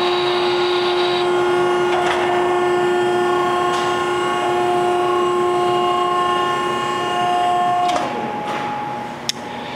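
Hydraulic power unit of a vertical cardboard baler running through its cycle, a steady whine with several pitches, as the ram compresses and then reverses back up. About eight seconds in, the whine drops in pitch and fades back.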